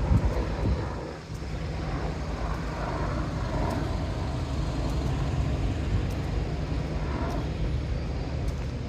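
City street traffic noise: a steady low rumble of passing vehicles, with a brief lull about a second in.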